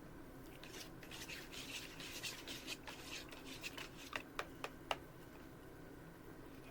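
Scratchy rustling of something being handled, ending in four sharp clicks in quick succession about four seconds in.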